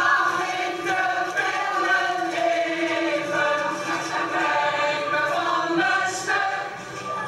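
A large group of voices singing together like a choir, many people on the same song at once.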